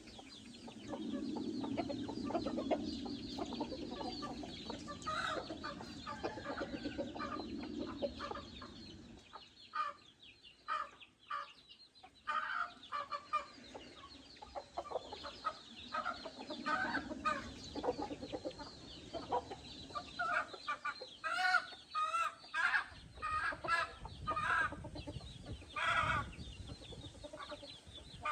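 Backyard chickens clucking, with many short calls one after another. A low, steady noise runs under them for about the first eight seconds.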